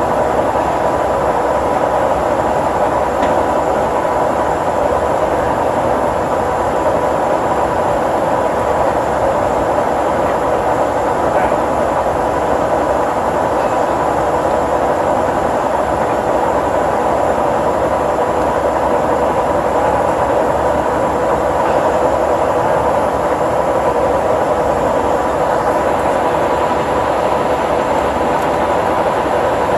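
1955 King 52-inch vertical turret lathe running under power: a steady, unbroken machine noise with a constant whine.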